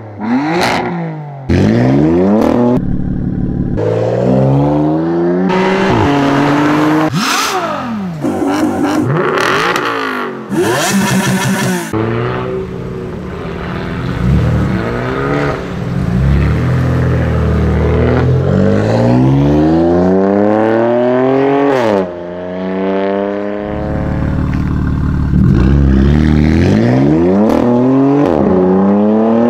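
BMW M4's twin-turbo straight-six through a straight-pipe exhaust, revving and accelerating hard: loud, with the pitch climbing and dropping again and again through revs and gear changes. Several sharp cracks stand out in the first half.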